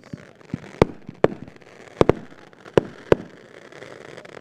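Fireworks going off: about six sharp bangs at irregular spacing, two close together about two seconds in, with smaller pops between.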